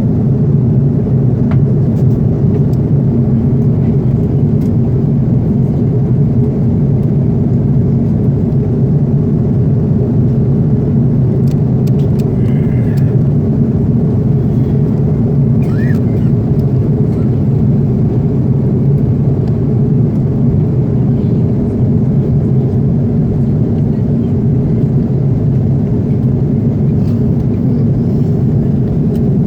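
Steady airliner cabin noise inside an Airbus A330: the even drone of engines and airflow, unchanging in level.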